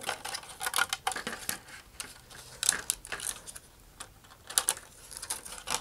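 Thin vacuum-formed plastic sheet being flexed back and forth by hand, crackling with irregular sharp clicks and ticks as it gives along the scored cut line to free a fairing.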